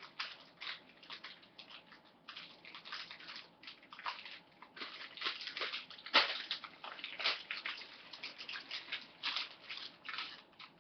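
Irregular crinkling and rustling from a squishy toy being handled and squeezed, made up of many short crackles with no steady rhythm.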